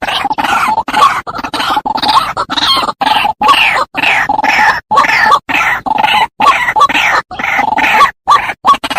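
White-breasted waterhen (ruak-ruak) calls played as a bird lure: a rapid, loud run of harsh, croaking calls, about two a second, with falling notes, broken by many short silent gaps.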